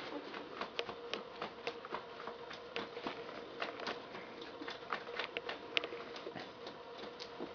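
Faint, irregular small clicks and light rustling from a newborn puppy being held and handled, over a faint steady hum.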